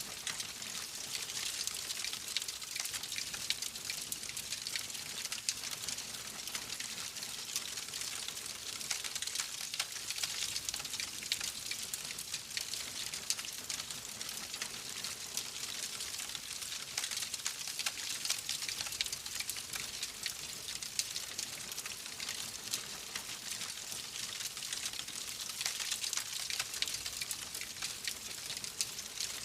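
Wood fire crackling in a fireplace: a steady hiss with frequent small, sharp pops.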